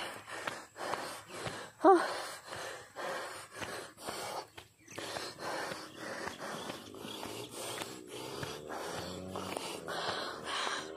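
A person breathing hard and fast, panting in quick heavy breaths, with a short voiced gasp about two seconds in. The breathlessness comes from climbing a very steep hillside on foot.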